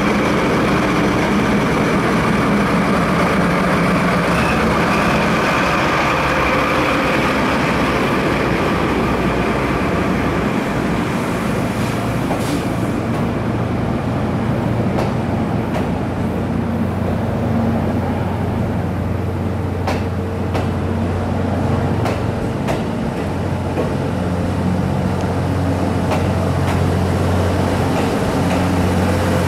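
Passing train: a DD51 diesel-hydraulic locomotive's engine sound, deep enough to be felt in the gut, gives way to 35-series passenger coaches rolling steadily past. In the second half there is a steady low hum and scattered clicks of the wheels over rail joints.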